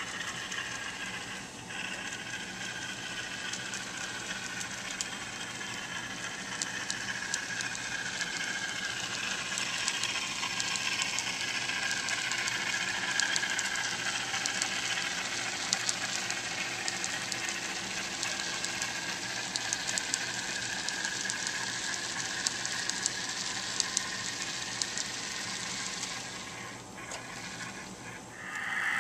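Model freight train running along the layout track: a steady whirring with fine rapid clicking of wheels on rail, swelling through the middle and dropping away near the end.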